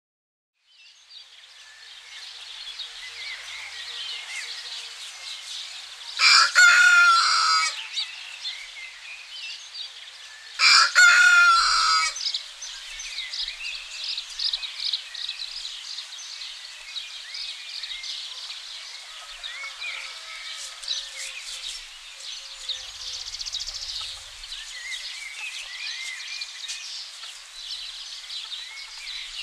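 Two rooster crows, each about a second and a half long, the second about four seconds after the first, over a steady chorus of small birds chirping. The sound fades in at the start.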